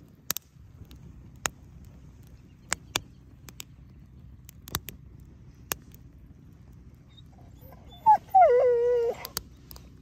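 Campfire of kindling and split wood crackling, with sharp scattered pops. About eight seconds in a dog gives one whine, about a second long, that drops in pitch and then holds.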